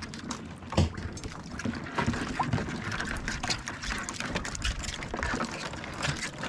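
Water sloshing and trickling on a small wooden outrigger fishing boat, with scattered knocks and clicks from handling gear and crabs in a water-filled cooler; one sharper knock about a second in.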